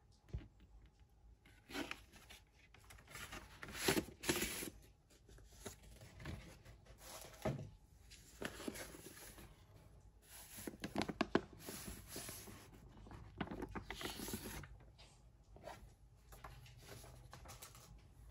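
Soft paper rustling and sliding in short bursts with pauses, as a vinyl record is drawn by hand out of its paper inner sleeve.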